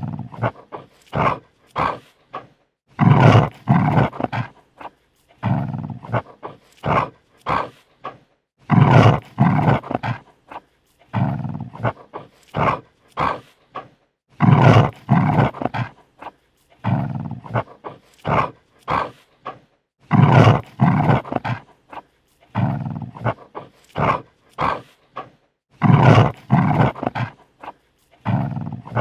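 Dog snarling defensively: a run of short snarls and growls, with a longer, louder snarl about every six seconds, repeating in the same pattern.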